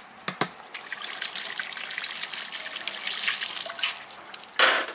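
Water trickling and dripping off the rim of a steel plate piled with freshly washed sole fish, a steady patter of drops. Two sharp clicks come just after the start, and a brief, louder gush of water comes near the end.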